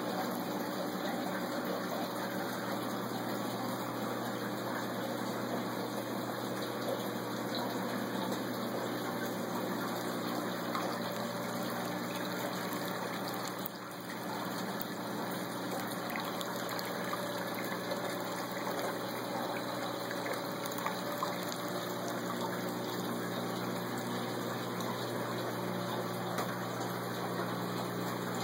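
Steady rush and splashing of water pouring into a saltwater stock-tank pond from its return plumbing, over a steady low pump hum. The level dips briefly about halfway through.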